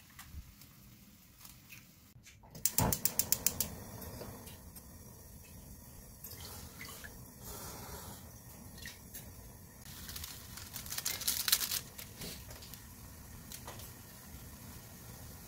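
Water poured from a cup into a shallow cast-iron Staub pan, splashing for a couple of seconds near the end. About three seconds in there is a quick run of about eight sharp clicks.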